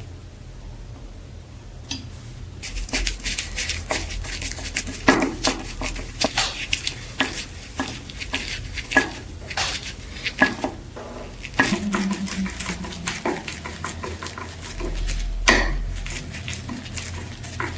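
Small metal parts clinking and knocking against each other and a hard surface as they are handled, in a rapid, irregular run of light taps with one louder knock near the end.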